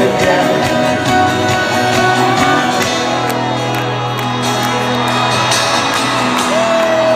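Live folk-rock band playing an instrumental passage with a steady beat, with the crowd shouting and whooping along.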